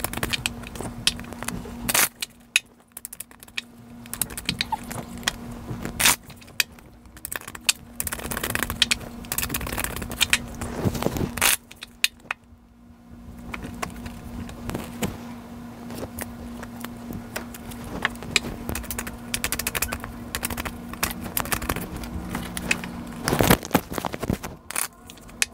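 A tarot deck being shuffled by hand, the cards rubbing and clicking against each other in irregular bursts with short pauses.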